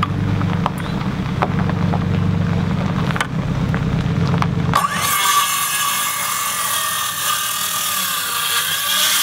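Circular saw bevel-cutting a wooden post at 45 degrees: a rough, low grinding cut with scattered clicks, then about five seconds in an abrupt change to a loud high whine over a hiss, its pitch sagging briefly near the end as the blade loads in the wood.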